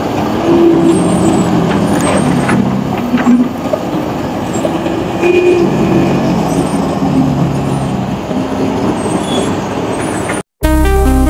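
Excavator's diesel engine running under load, its tone rising and falling as it works, with a few metallic knocks. Near the end it cuts off and electronic music with a steady beat starts.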